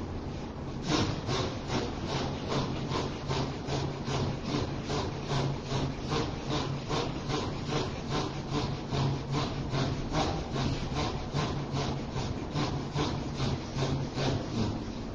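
Fast, even, raspy strokes, about three a second, starting about a second in, from a person doing rhythmic dhikr, over a steady low hum.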